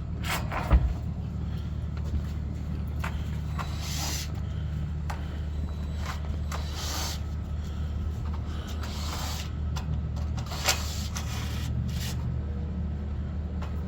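Heavy engine running steadily with a low drone, likely the crane lifting the rooftop units, with a sharp knock about a second in and scattered short rushes of noise.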